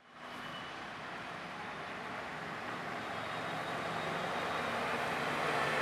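Busy city street traffic, a steady wash of passing vehicles that fades in at the start and grows gradually louder.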